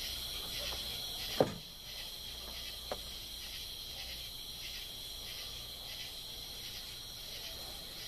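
Insects trilling steadily at a high pitch with a faint regular pulse. A sharp knock sounds about a second and a half in, and a lighter one about three seconds in.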